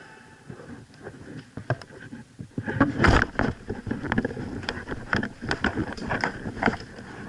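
Movement and handling noise on a body-worn camera: faint at first, then from about three seconds in a run of irregular knocks and rustles, like footsteps and gear brushing as the wearer moves.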